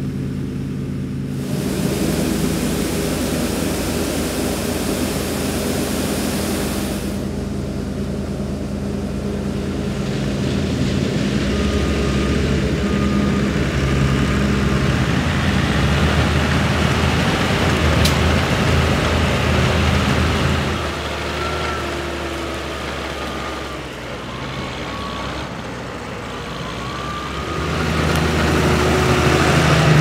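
Diesel engines of a New Holland TC5.90 combine harvester and a Deutz-Fahr tractor running steadily in the field, their drone shifting in pitch and loudness. A hissing rush lies over the engines for several seconds near the start, and the engine noise grows louder again near the end.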